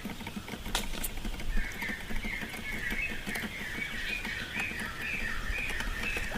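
Teetar (francolin) calling, a rapid series of short repeated chirping notes, about four a second, starting about a second and a half in. Two sharp clicks come just before the calls begin.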